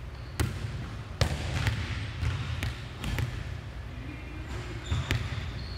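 A volleyball struck with an overhand serve, a sharp slap of hand on ball, then the ball hitting and bouncing several times on a hardwood gym floor, each impact echoing in the large hall.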